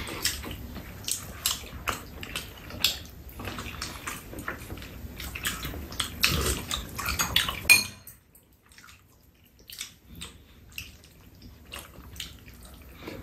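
Chopsticks and spoons clicking against ceramic bowls and a metal tray during a meal of rabokki, with wet eating and slurping noises. The clicking is busy for about eight seconds, then turns sparse and quiet.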